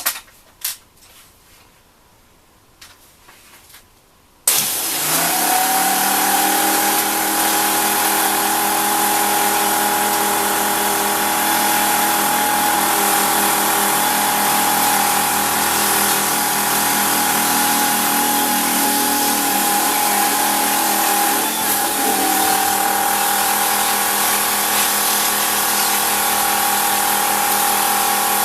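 A few light clicks and taps, then about four and a half seconds in a Hitachi Koki AW18DBL cordless high-pressure washer pump starts abruptly and runs steadily, a constant whine over an even hiss.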